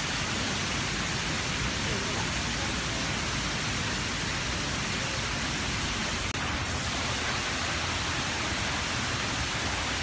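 Steady rushing roar of a large waterfall, the Wachirathan Falls, an even wash of noise broken for an instant a little past six seconds in.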